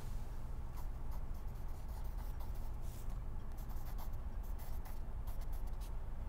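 Ballpoint pen scratching on paper in many short strokes, over a steady low hum.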